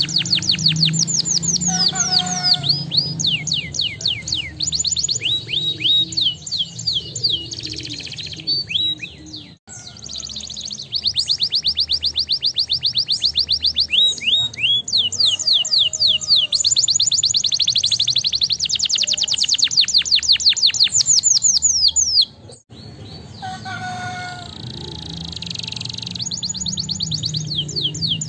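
Domestic canary singing: long rolling trills of rapid repeated notes, with runs of quick falling sweeps. The song breaks off sharply twice, about a third and four-fifths of the way through.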